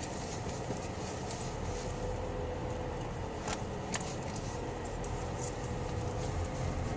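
Car cabin noise while driving slowly: a steady low road rumble with a faint engine hum, and a few light rattling clicks around the middle.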